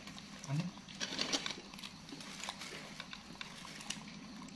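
Monkeys biting and chewing raw long green beans: a run of crisp crunching clicks and snaps, thickest about a second in, with a short low grunt just before.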